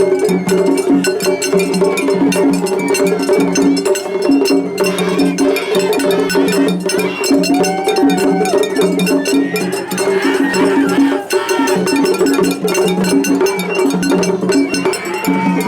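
Japanese festival hayashi from rival floats playing against each other at once: rapid metallic clanging of hand-held kane gongs over drums and other hayashi instruments.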